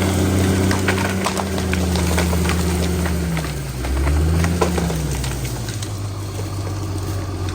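A heavy machine's engine running steadily, its pitch dipping and recovering about halfway through as if under load, with a run of sharp cracks and snaps of wood in the first half.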